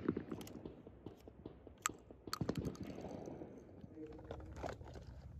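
Fading echo of a 12-gauge shotgun shot, then sharp metallic clicks as the Stoeger Condor Field over-under is broken open and its spent shells handled.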